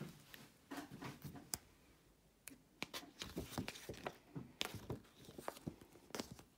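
A paperback book being opened and its pages turned: a string of short, quiet paper rustles and crackles.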